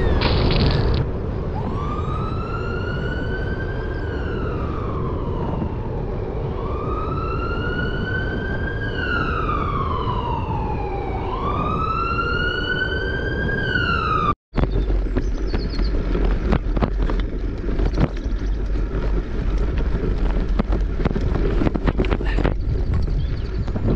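A siren wailing in three slow rising-and-falling sweeps. It stops at an abrupt cut about 14 seconds in, after which wind buffets the microphone.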